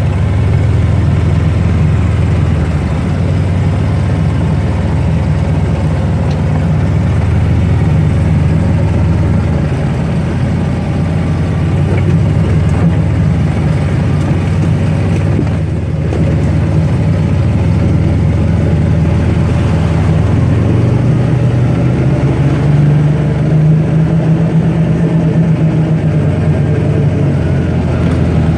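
Small utility vehicle's engine running steadily as it drives, its pitch rising for a few seconds about three-quarters of the way through before settling back.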